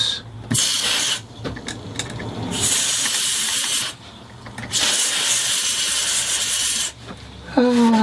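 Aerosol can of WD-40 Specialist fast-drying contact cleaner spraying through its straw nozzle in three hissing bursts. The last burst is about two seconds long.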